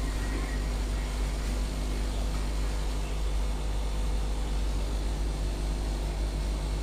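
Steady mechanical hum with an even hiss, unchanging throughout, with a strong low rumble.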